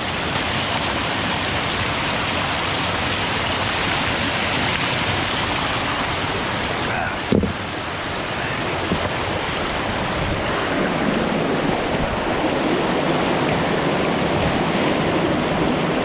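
Rushing water of a creek's cascades, a steady hiss. There is one brief knock about seven seconds in, and the water sound turns deeper about ten seconds in.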